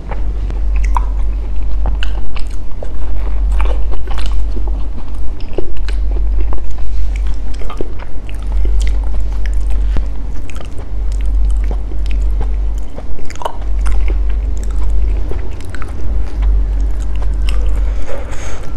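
Close-miked chewing of sticky rice and durian: many small wet clicks and smacks of the mouth over a strong, uneven deep rumble. Soft squishing as ripe durian flesh is torn apart with gloved hands.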